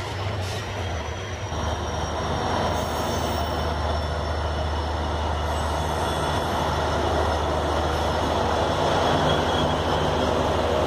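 Indian Railways diesel locomotives hauling an express train past at close range: a steady low engine drone under the rumble of wheels on the rails, growing louder over the first couple of seconds.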